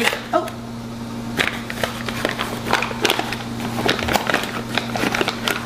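Paper flour bag rustling and crinkling as a copper measuring cup is dug into the flour: a continuous run of small irregular crackles and scrapes, over a steady low hum.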